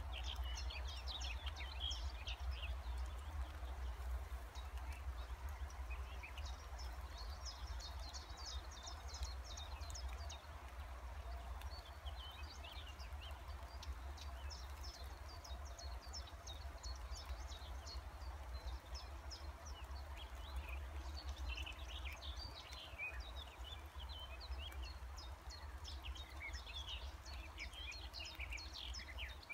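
Songbirds chirping and singing in woodland, in repeated bouts of short high notes, over a steady low rumble.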